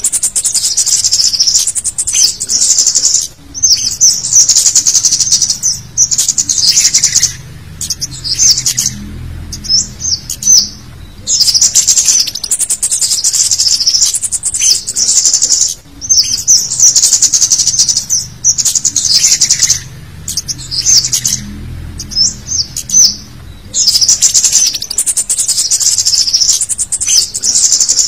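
Scarlet-headed flowerpecker (cit kemade) lure recording: rapid, very high-pitched chittering calls in bursts of one to three seconds with short breaks, repeated over and over. It is a busy combination call used to attract wild flowerpeckers.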